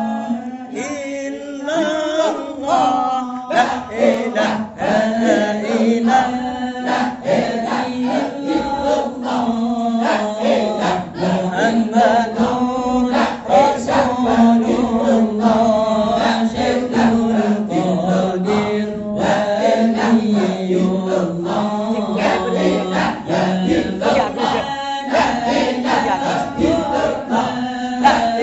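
A young boy chanting dzikir, Islamic devotional phrases repeated in a sing-song melody, his voice held almost without a break. Frequent sharp clicks run through it.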